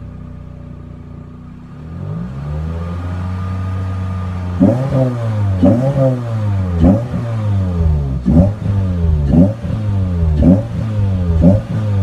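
Toyota Corolla TSport's 1.8-litre VVTL-i four-cylinder engine revved while parked. It idles at first, rises to a held higher speed about two seconds in, then from about four and a half seconds is blipped sharply about once a second, seven quick rises and drops in engine speed.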